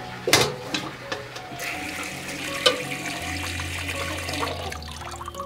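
Tap water running into a stainless-steel sink basin as a plucked whole chicken is rinsed, for about three seconds in the middle. A sharp knock sounds right at the start, as the chicken is handled against the sink.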